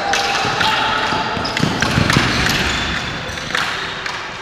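Ball hockey play on a concrete arena floor: repeated clacks of sticks and the ball striking the floor and boards, echoing in the large hall, with players' voices in the background.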